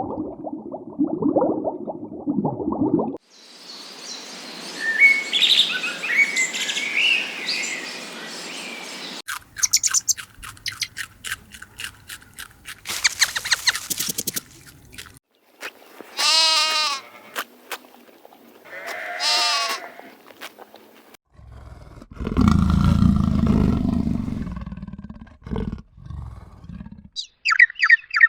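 A run of different animal calls, one after another: birds chirping, then two wavering bleats like a goat's, then a low, loud call, with more bird chirping starting near the end.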